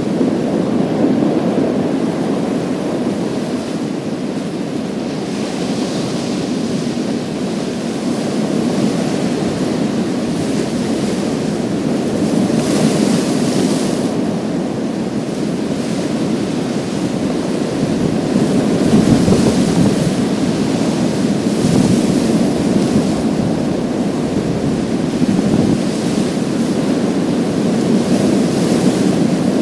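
Waves washing over a pebble beach: a steady rush of surf, rising every few seconds to a brighter hiss as the water runs over the stones.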